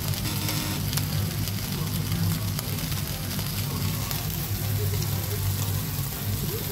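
Food sizzling with a fine, continuous crackle on a gas stove, over a steady low hum.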